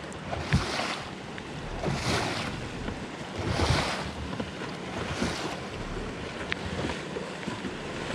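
Boat-wake waves slapping and splashing against the bow of a bass boat, four surges about a second and a half apart, with wind on the microphone.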